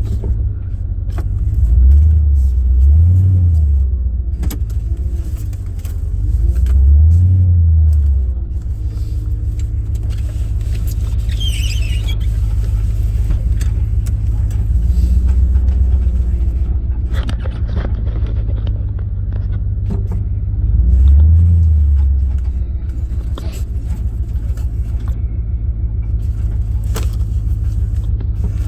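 Vehicle engine running as it drives off, its low note swelling and easing with the revs a few times, with scattered clicks and rattles over it.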